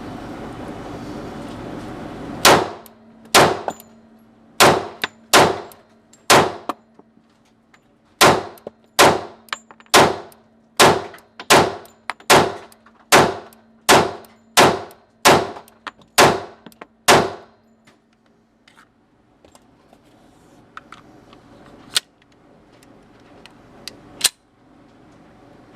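A firearm fired in a string of about twenty sharp shots, each with a short ringing tail. A few come first, then a steady run of roughly one shot every 0.7 s, and two lighter ones near the end.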